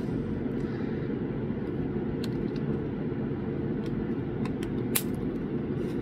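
Steady low background rumble with a few small, sharp clicks, the loudest about five seconds in, as flush cutters snip a protruding tab off a slide potentiometer.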